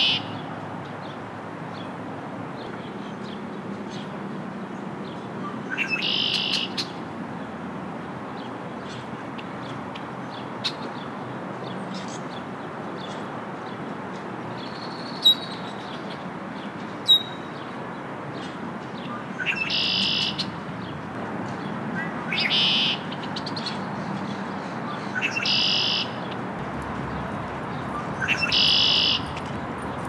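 Male red-winged blackbird singing its konk-la-ree song six times: each phrase is a short rising note and then a buzzy trill lasting under a second. Two brief, sharp, loud notes come near the middle.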